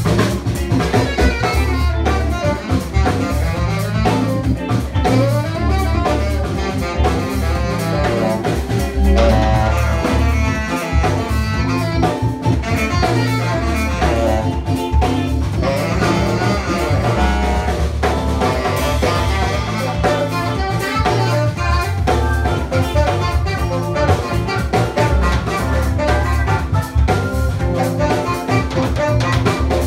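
Live funk band playing: a tenor saxophone solos over organ, electric guitar and drum kit, with a heavy, repeating bass line underneath.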